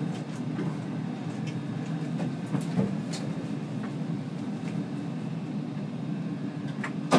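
C20 metro train running along the track with a steady low rumble from the wheels and running gear. Scattered clicks and knocks come through, with a sharper knock near the end.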